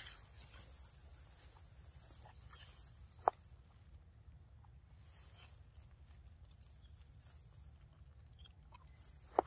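Faint sounds of macaques eating mango in grass: soft rustling and handling of the fruit, with two sharp clicks, about three seconds in and again near the end, over a steady thin high whine.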